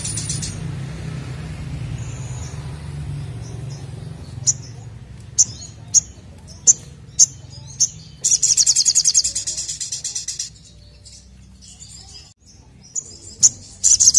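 Caged sogokontong (brown-throated sunbird) in full song: sharp single chips about every half second alternate with loud, fast, high-pitched trills of about two seconds each, one in the middle and another starting near the end.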